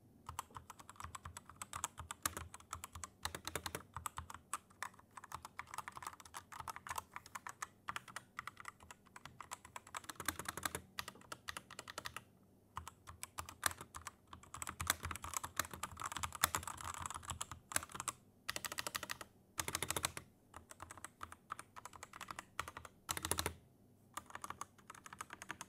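Typing on a compact mechanical keyboard with linear red switches: fast runs of light keystroke clicks and clacks, with a few short pauses and a few heavier strokes, likely the space bar. The keyboard's sound is fairly soft, as red switches are meant to be, and sweet-sounding.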